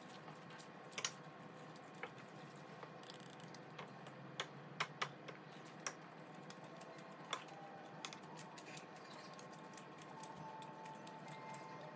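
Chopsticks clicking against a ceramic bowl during a meal. A scattering of sharp clicks over a quiet background, with a quick run of three around the middle.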